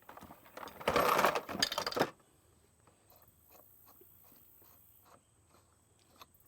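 Metal scraping and clinking as an outboard flywheel is turned and worked down onto the crankshaft, its magnets pulling hard toward the ignition coils, loudest for about a second early on. It is followed by a run of faint light metal clicks.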